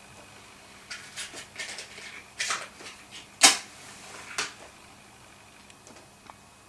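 Handling noises: a scattered run of light clicks, rustles and knocks as small objects are moved and set down, with one sharper knock about three and a half seconds in.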